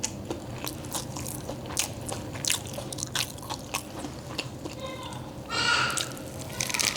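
Close-up crunching and chewing of a crisp deep-fried wonton-wrapper chip, a run of sharp crackly bites. A short voice sound comes about five and a half seconds in.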